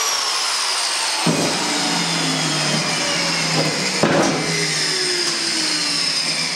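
Angle grinder coasting down after being switched off, its whine falling slowly in pitch, with a few knocks from the steel seat pan being handled on the workbench.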